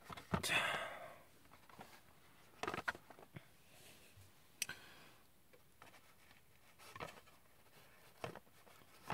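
Light handling noises from a cardboard display box being moved and set down: a short rustle of cardboard near the start, then a few soft, separate taps and knocks.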